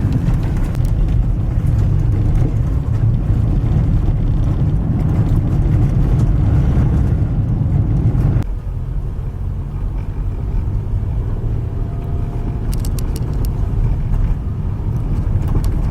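Car in motion heard from inside: a steady low rumble of engine and road noise, which drops slightly in level about eight seconds in.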